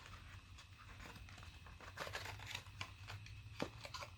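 Faint crinkling and light clicks of model-plane packaging being handled, with one sharper click about three and a half seconds in.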